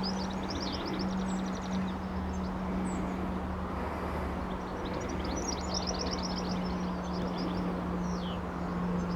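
Small birds twittering outdoors in quick trills, two runs of them and a single falling chirp near the end, over a steady low hum and a rushing background noise.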